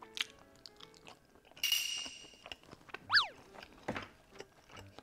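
Close-miked mouth sounds of eating: wet sucking, smacking and chewing of sticky, sauce-coated braised beef feet, over light background music. About three seconds in comes a short, loud falling squeak-like tone.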